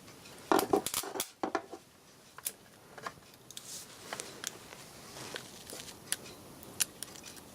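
Small metallic clicks and taps of a copper probe and tools on a circuit board, loudest in a quick cluster about half a second to a second and a half in, then scattered single clicks.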